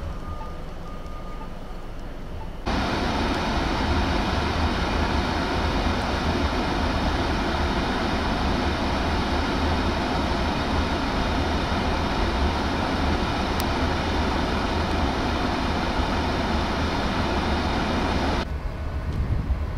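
Steady wind rush over a low vehicle rumble on a snow-choked street in a blizzard. The rushing noise cuts in abruptly about three seconds in and drops away again near the end.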